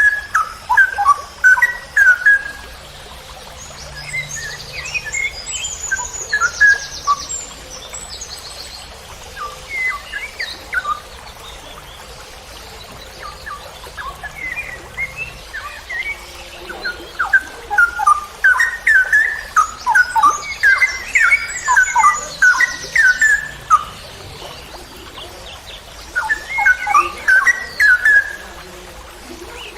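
Straw-headed bulbul (cucak rowo) singing in repeated bursts of rapid, pitch-sliding notes, with short pauses between phrases. A fast, high trill comes in twice, about six seconds in and again past twenty seconds.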